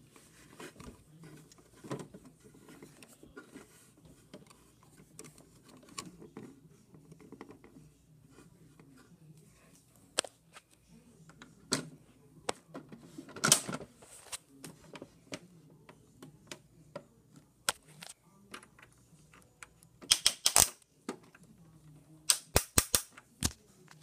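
Plastic clicks and knocks from a toy washing machine being handled: single sharp clicks every second or two, then two quick runs of several clicks near the end.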